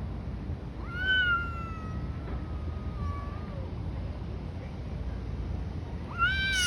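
Street cats yowling in a fight standoff: one long drawn-out yowl starting about a second in, rising briefly and then sliding slowly down over nearly three seconds, and a second yowl starting near the end.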